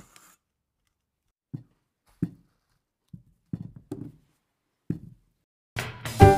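About six short, dull knocks and thuds from noodles being tossed and stirred in a metal kadai, spaced irregularly with short pauses between. Music comes in near the end.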